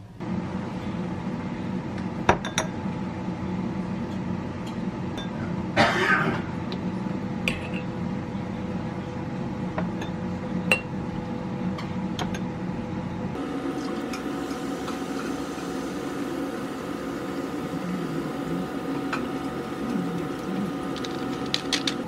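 Air fryer running with a steady hum, with a short clatter about six seconds in and a few light clinks of glass and kitchenware.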